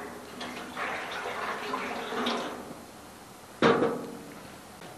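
Water pouring from a plastic jug into a thin welded stainless steel evaporator pan, filling it to test the seams for leaks. About three and a half seconds in comes a single sharp knock, the loudest sound, with a short ringing tail.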